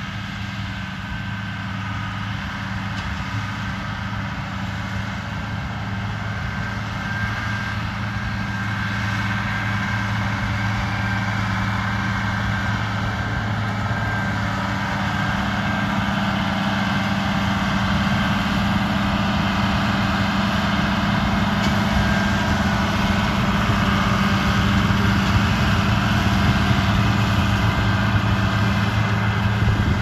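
International Harvester tractor's diesel engine running steadily as it pulls a working Vermeer round baler through windrowed hay, growing louder as it comes closer.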